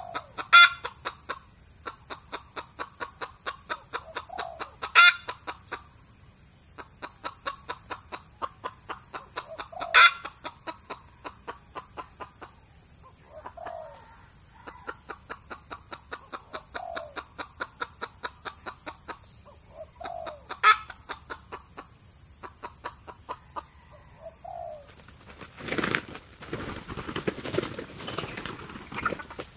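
Red junglefowl roosters clucking in a quick, steady series of short notes, about four or five a second, with a few louder sharp notes along the way. Near the end comes a noisy burst of wing flapping as the roosters scuffle.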